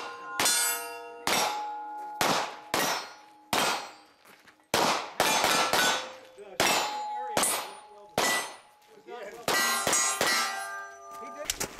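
Pistol-caliber carbine fire hitting steel targets: more than a dozen sharp hits in quick strings with short pauses between, each leaving the steel plate clanging and ringing.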